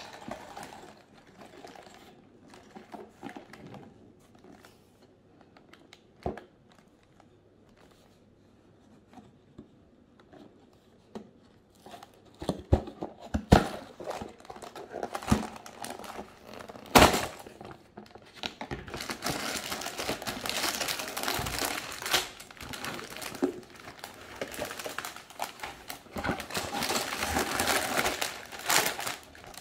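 Cardboard box handled, with a few sharp knocks partway through, then plastic LEGO parts bags crinkling steadily and loudly through the last third.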